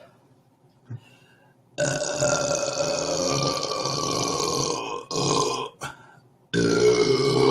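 A man belching on command with long drawn-out burps: one lasting about three seconds, a short one right after, then another long one starting near the end.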